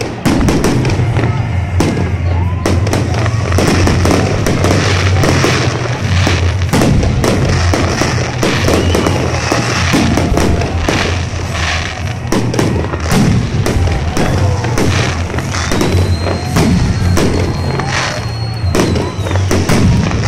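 Fireworks display: aerial shells bursting overhead in a rapid, unbroken run of bangs and crackling, with music playing in the background.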